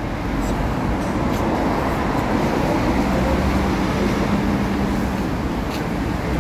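Road traffic passing on a busy road: a steady rush of engines and tyres with a low engine hum, swelling a little in the middle.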